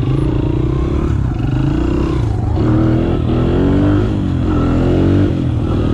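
Small pit bike engine accelerating, heard from the rider's helmet; its note rises several times, dropping back in between, as it shifts up through the gears.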